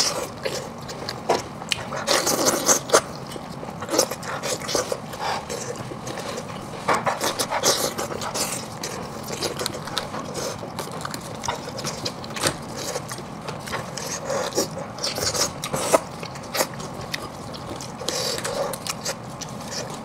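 Close-miked eating: a cooked sheep's head pulled apart with plastic-gloved hands and the meat chewed, a string of irregular wet smacks and crackling clicks.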